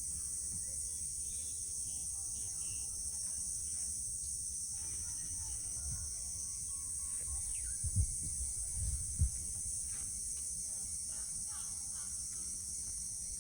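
Steady high-pitched chorus of insects, with a low rumble underneath and two soft thumps about eight and nine seconds in.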